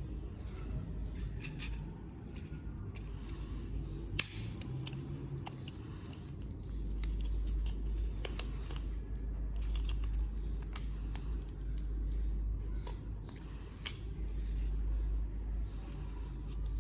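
Sewing-kit items being handled and unpacked: a scattered run of small clicks, taps and clinks of small hard parts, with a sharper knock about four seconds in and two more in the last few seconds, over a low rumble.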